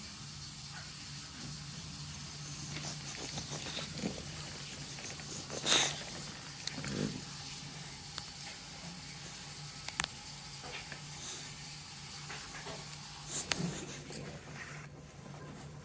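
A sleeping pet snoring softly with a steady low drone and breathy hiss. A few short knocks or rustles break in about six seconds in, again around ten seconds, and twice near the end.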